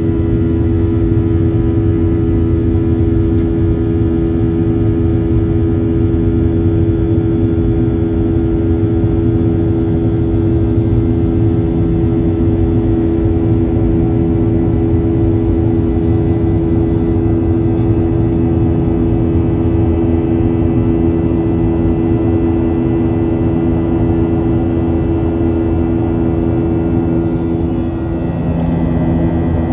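Jet airliner's turbofan engines heard from inside the cabin during the climb after takeoff: a loud, steady drone with a low hum. Near the end the hum's pitch shifts slightly.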